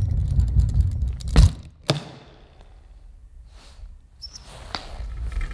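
Wheeled hard-shell flight case rolling on a concrete floor with a low rumble, then two thuds about half a second apart as it is set down upright, followed by a few faint clicks.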